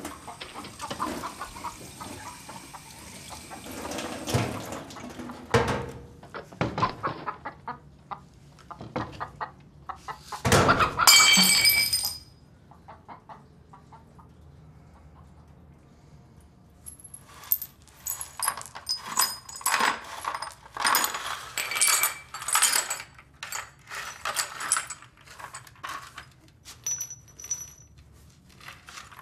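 Dishwashing at a kitchen sink, with running water and clinking dishes, then a glass breaking with a loud crash about ten seconds in. Later comes a stretch of sharp clinks and scrapes as broken glass shards are swept with a hand brush into a plastic dustpan on a terrazzo floor.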